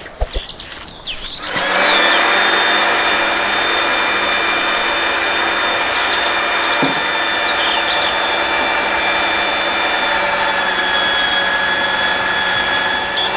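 A motor-driven machine switches on about a second and a half in and runs steadily, with a constant hum. A few knocks come before it starts.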